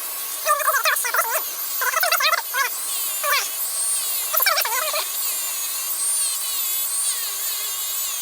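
Dremel rotary tool with a wire brush running at high speed, a steady high whine whose pitch wavers, as it scrubs rust off a small steel part of a motorcycle fuel petcock. Four louder rasping bursts in the first five seconds as the brush bites on the metal.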